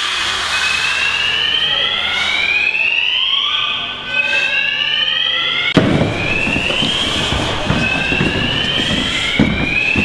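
Building fire evacuation alarm sounding a repeating rising whoop, about one sweep every second and a half. From about six seconds in, a louder low rushing noise lies underneath.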